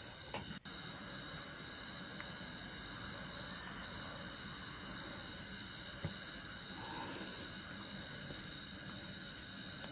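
Crickets and other night insects chirping: a fast, even high-pitched pulsing, about five chirps a second, over steady high trilling.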